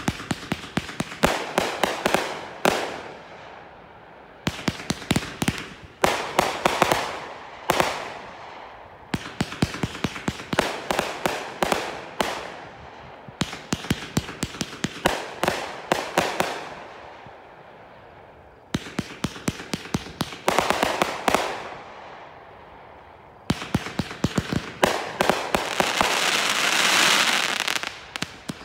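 Brothers Fireworks 'Inside Job' multi-shot firework firing in volleys of rapid sharp pops as shots launch and burst, each volley trailing off in a fading crackle, with short lulls between. Near the end the shots run together into a dense, steady hiss.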